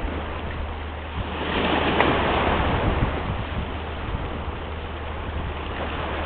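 Small waves washing in on a rocky shore as a steady hiss. One wave swells louder about a second and a half in and fades over the next couple of seconds.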